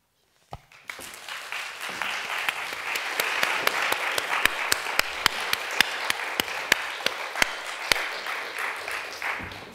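Audience applause, with loud single claps standing out at about three a second; it starts about a second in and dies away near the end.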